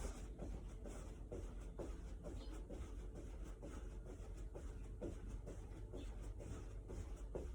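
Feet landing rhythmically during jumping jacks: soft thuds at about two a second.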